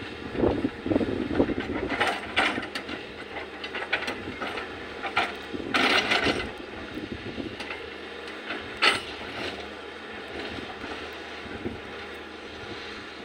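Volvo excavator working on rocky ground: its engine runs steadily under sharp clanks and clatters of the bucket against rock, a few times, the longest and loudest about six seconds in.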